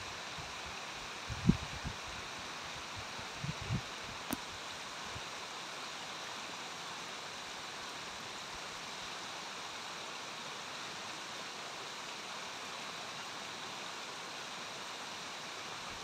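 Small brook babbling steadily over stones and a low rocky step into a pool. A few brief low thumps in the first four seconds, the loudest about one and a half seconds in, and a single sharp click soon after.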